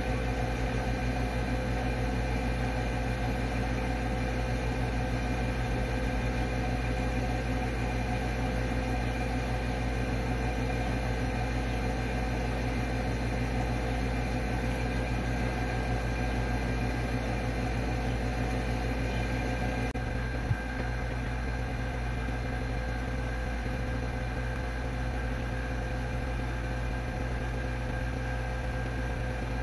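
Steady mechanical hum of a running machine or appliance, holding several fixed tones, with a single sharp click about twenty seconds in.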